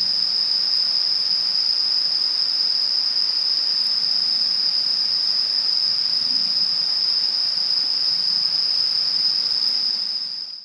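Chorus of autumn insects, crickets or katydids, trilling as one steady high-pitched drone over a faint hiss, fading out near the end.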